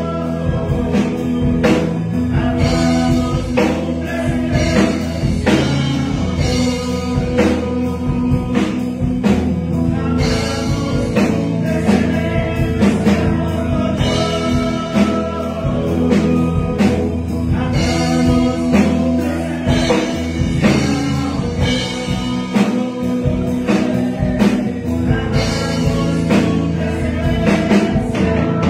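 A man singing a Spanish-language worship song into a microphone over amplified instrumental backing with a steady beat.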